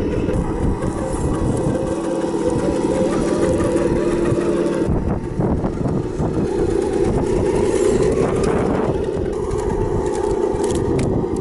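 Simulated engine sound from an RC crawler's onboard Sense Innovations ESS ONE+ sound module, running steadily, with wind buffeting the microphone. The sound changes abruptly about five seconds in.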